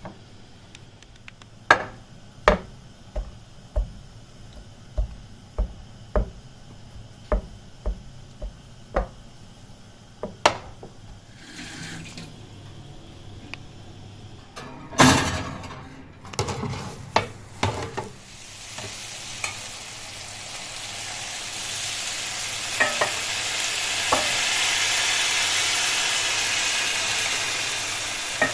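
A run of about a dozen sharp kitchen knocks and taps, a few more a little past halfway, then a steady hissing sizzle that builds over the last third: kadayıf dessert sizzling in the pan.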